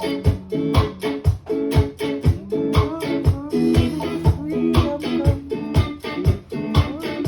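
Band music with a steady beat of kick drum about twice a second under plucked guitar and keyboard parts.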